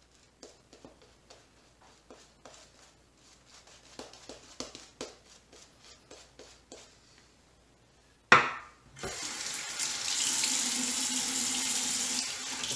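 Badger shaving brush working lather over the face in quick, faint swishing strokes. About eight seconds in, a bathroom tap is turned on with a sudden splash, and water runs steadily into the sink.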